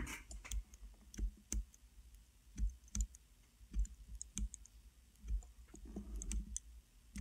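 Irregular small clicks and light taps from hands working on a rebuildable vape atomizer deck and mod.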